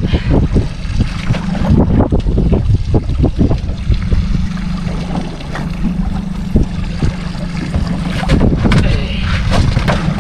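Wind buffeting the microphone on a small fishing boat, with sea water slapping and splashing at the side and scattered knocks as a hooked amberjack is handled alongside. A steady low drone runs underneath.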